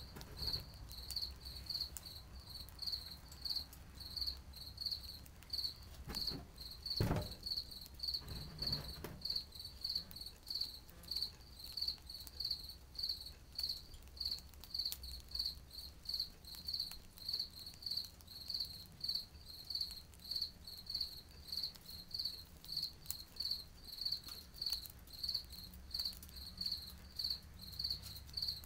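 A cricket chirping steadily in the background, a high, even chirp repeating nearly twice a second. A single knock about seven seconds in.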